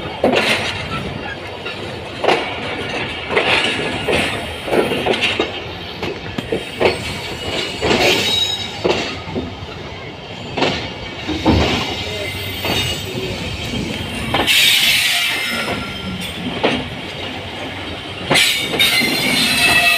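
Train running on rails, heard from aboard: a steady rumble with irregular clanks and knocks as the wheels cross rail joints and points, and brief wheel squeal in the second half.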